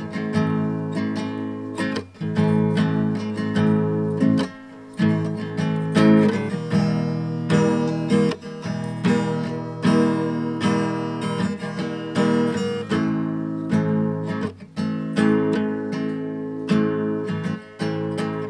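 Music: an acoustic guitar strumming chords.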